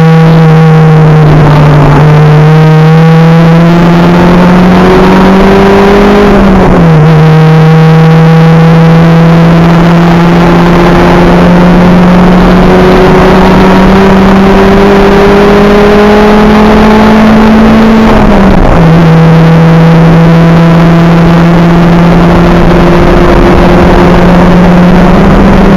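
Acura Integra race car's engine heard from inside the car at full throttle, its pitch climbing slowly and dropping suddenly twice, about six and eighteen seconds in, with road and wind noise beneath.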